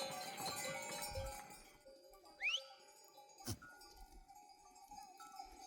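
Bells on a goat herd clinking and ringing at uneven intervals. There is a short rising whistle about two and a half seconds in and a single sharp click about a second later.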